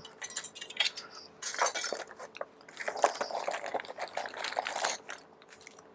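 Thin plastic packaging crinkling and crackling in irregular spurts as a bag is handled and opened, with a few light clicks mixed in.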